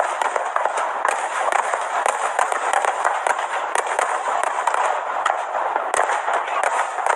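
Fireworks crackling: a dense, continuous stream of small pops and crackles.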